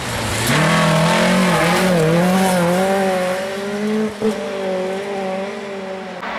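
Volvo 240 rally car's engine at high revs as the car drives past on a gravel stage. The revs dip and recover about two seconds in, then hold steady while the sound slowly fades as the car pulls away.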